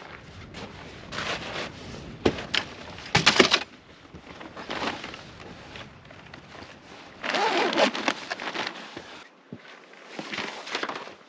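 Irregular rustling, clattering and knocks of gear being handled and packed up, loudest in short bursts about three seconds in and again about seven seconds in.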